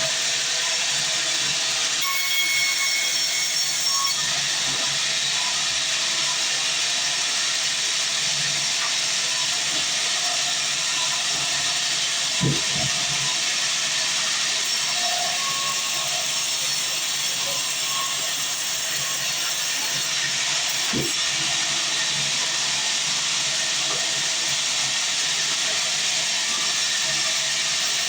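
Band sawmill blade cutting lengthwise through a mahogany log: a steady, hissing saw noise at an even level, with two brief low thumps, one near the middle and one later.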